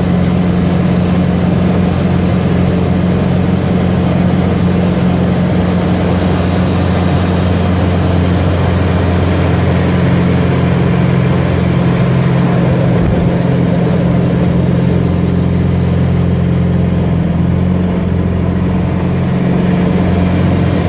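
Piston engine and propeller of a low-wing light aircraft droning steadily in flight, heard inside the cockpit along with the rush of air.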